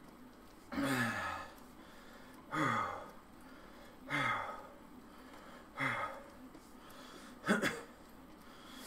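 A man's heavy, voiced exhalations while working hard on an exercise bike: five puffing sighs about a second and a half apart, each falling in pitch, the last one shorter and sharper.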